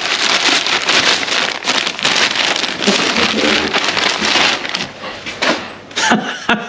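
A parcel's packaging being torn open and rustled by hand: a dense, crinkling rustle for the first four seconds or so, then fainter handling with a few sharper rustles near the end.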